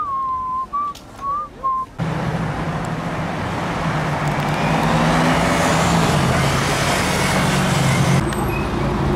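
A few whistled notes, then a Ferrari GTC4Lusso driving past, its engine a steady low drone with tyre and road noise that swells about halfway through.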